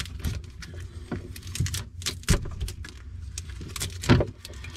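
Electrical tape being peeled off a bundle of wires in irregular crackling rips, with the loose wire ends and crimp connectors rustling and clicking against each other; one louder crackle comes near the end.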